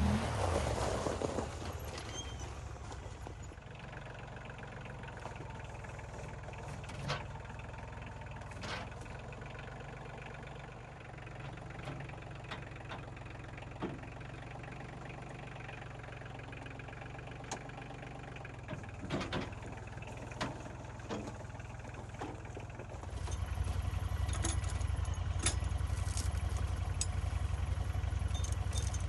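Tractor engine running steadily at low speed, with a few scattered knocks and clanks. About three-quarters of the way through the engine gets louder and stays up, as if throttled up or put under load.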